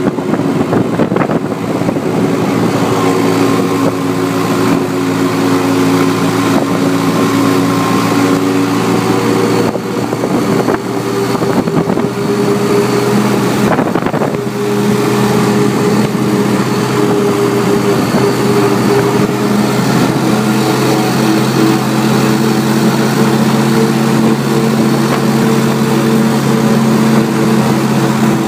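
A 1955 Volvo T24 tractor's petroleum (paraffin) engine running steadily under way. Its engine note changes speed about a third of the way in and again about halfway through.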